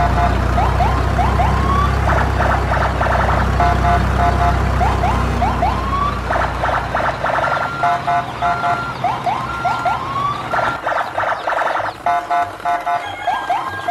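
Battery-operated toy police car playing its electronic siren sound effect through a small speaker while it drives: rapid pulsing beeps alternating with short rising whoops, repeating over and over. A low rumble runs underneath and dies away about eleven seconds in.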